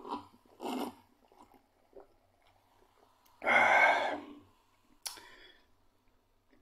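A man swallowing gulps of fizzy tarragon soda, then one loud breathy exhale of just under a second after the drink, about three and a half seconds in. A single sharp click follows a couple of seconds later.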